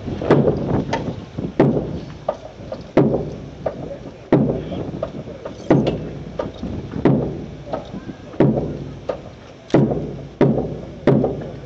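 Boots of a squad of drill recruits marching in step: regular heavy stamps, a little slower than one a second, with lighter footfalls between.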